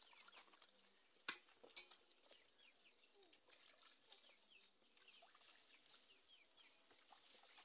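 Fish being washed by hand in a plastic basin of water: quiet water splashing and handling sounds, with two sharp knocks close together about a second and a half in. Birds chirp faintly in the background.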